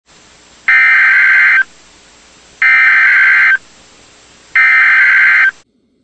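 NOAA Weather Radio SAME alert header (the EAS data burst): three identical bursts of fast, warbling digital tones, about a second each and about a second apart, with a steady hiss between them. The header marks the start of an emergency alert message, here a Winter Storm Watch.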